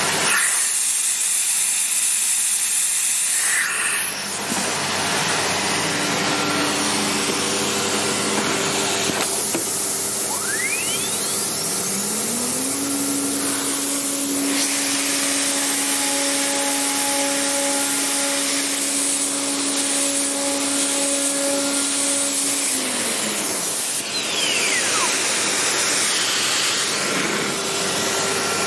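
Kimla CNC router running with its vacuum hold-down pump and extractor making a steady loud hiss. A machine whine climbs in pitch about twelve seconds in, holds steady, then drops back near the end, as the spindle and axes work on cutting a sheet-metal part with a 4 mm end mill.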